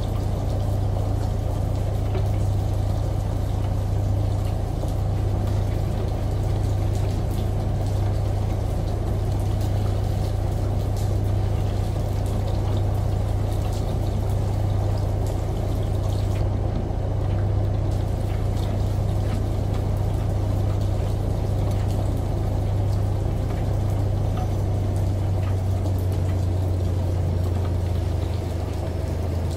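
Washing machine running with a steady low hum, mixed with the even rush of running water from a shower and falling rain.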